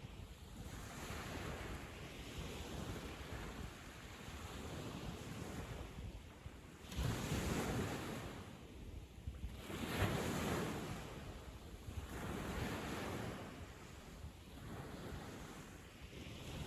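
Ocean waves breaking and washing up a sandy beach, each surge swelling and falling away every few seconds, with the largest breakers about seven and ten seconds in. Some wind on the microphone.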